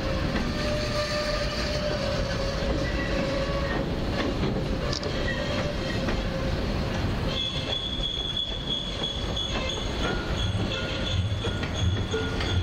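Railroad boxcars and passenger cars rolling past on the rails with a steady wheel squeal. About halfway through, the squeal shifts to a higher pitch.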